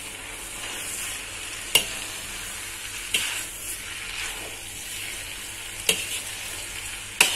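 Rice vermicelli stir-frying in a wok: a steady sizzle, with a perforated metal spatula scraping and clacking against the wok about four times as the noodles are turned.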